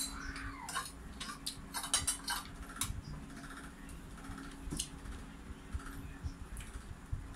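Spoon and fork clicking against a dish over the first few seconds, then sparser clicks with close-up chewing and mouth sounds of eating.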